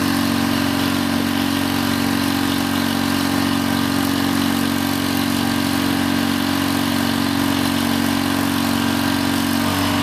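Engine-driven hydraulic pump running steadily with a constant hum while the 1993 IMT crane's boom is worked by its control levers; the pitch shifts slightly near the end.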